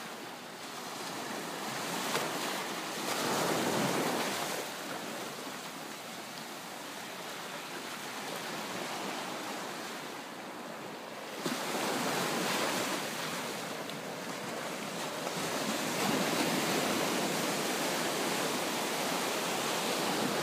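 Sea surf breaking on a sandy shore: a steady wash of noise that swells and eases several times as waves come in.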